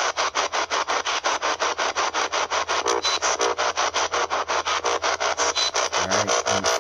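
Ghost box (spirit box) radio sweeping through stations: a fast, even chop of static bursts, about seven a second. A brief low voice-like fragment comes through near the end.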